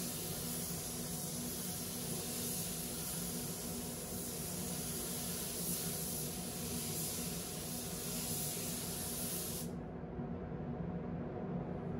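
Compressed-air gravity-feed spray gun hissing steadily as it sprays paint onto the van's panels, cutting off suddenly about ten seconds in. A steady low hum carries on underneath.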